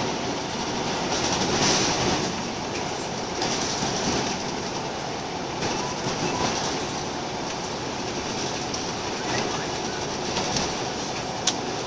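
Scania L94UB Wright Solar single-deck bus under way, heard from inside the saloon: steady engine and road noise with rattling from the body and fittings, and a sharp click near the end.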